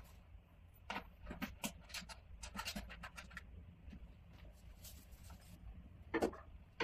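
Scattered clicks and knocks of plastic handpieces and cable connectors being plugged into the machine's front panel and set into their holders. Several come in the first three seconds and one more near the end.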